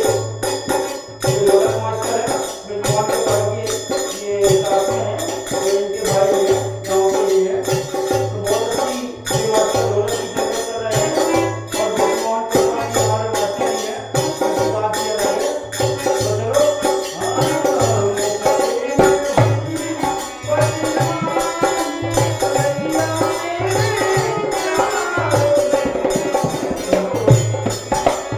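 Bhajan music: a wavering melody over a steady low drum beat, with jingling percussion like a tambourine or small cymbals keeping time.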